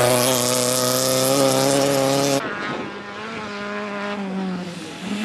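Rally car engine held at high revs at a steady pitch, loud, until it cuts off abruptly about two and a half seconds in. A second rally car's engine follows, quieter, its pitch slowly falling before picking up again near the end.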